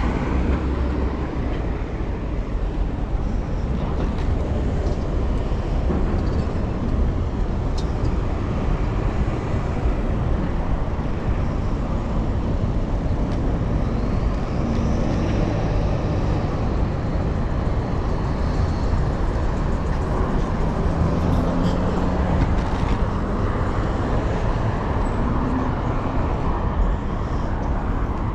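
City traffic and road noise picked up from a moving bicycle: a steady low rumble with passing motor vehicles, and an engine's hum passing in the second half.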